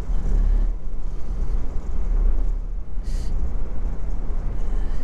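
Driving noise in an open-top Honda S660 on the move: a steady low wind rumble buffeting the microphone, mixed with road and engine noise, with a brief hiss about three seconds in.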